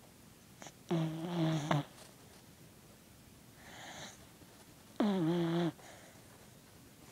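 Sleeping puppy snoring: two pitched snoring breaths about four seconds apart, each a little under a second long, with a softer breathy sound between them.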